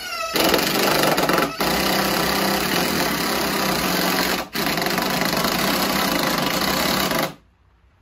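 Cordless drill driving a 3-5/8-inch FastenMaster LedgerLok structural screw through a deck ledger board into the house framing, with no pilot hole. The motor whines up to speed and runs under load with two brief let-offs of the trigger, about 1.5 and 4.5 seconds in, then stops about 7 seconds in once the screw is fully seated.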